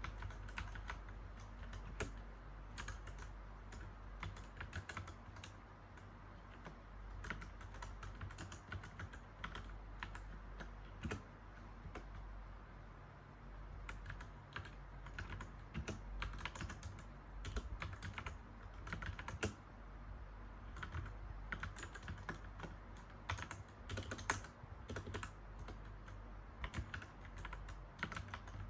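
Typing on a mechanical keyboard: a steady stream of key clicks in uneven runs with short pauses, over a low steady hum.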